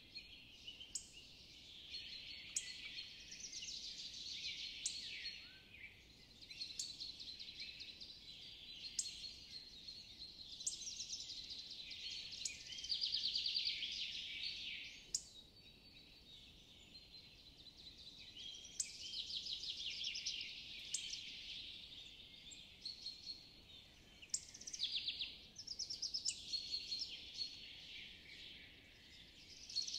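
Woodland birdsong: several small birds singing, with fast dry trills recurring every few seconds and short sharp high chips about every two seconds.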